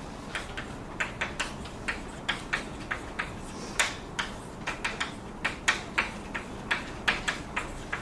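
A quick, irregular series of light clicks and taps, about two to four a second, over steady room hiss.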